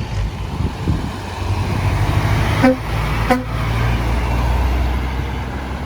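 Passing truck's engine running steadily, with two short horn toots a little over half a second apart near the middle.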